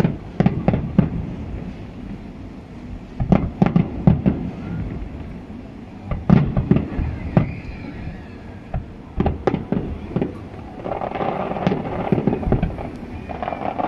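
Aerial fireworks bursting: clusters of sharp bangs and crackles recurring every few seconds, with low rumbling between them.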